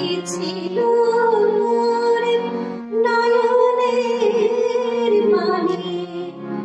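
A woman singing a slow melody with long held notes into a microphone, over steady held accompaniment chords; she pauses for breath briefly about three seconds in.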